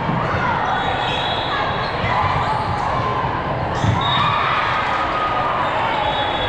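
Volleyball gym din: many voices chattering across a large hall, with ball thuds and one sharp smack of a ball strike about four seconds in.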